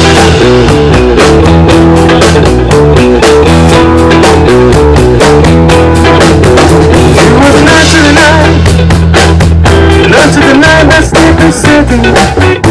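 A small band playing live: electric guitar, electric bass and a drum kit keeping a steady beat. The held bass notes drop out near the end.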